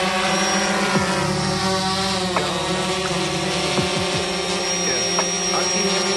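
Drone's motors and propellers whining steadily, with the pitch sliding down and back up several times as the motors change speed.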